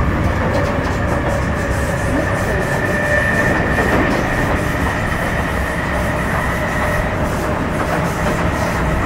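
Metro Cammell M-Train electric multiple unit with GEC GTO chopper traction running along the line: a steady rumble of wheels on rail with light clickety-clack, and a steady high whine from the traction equipment.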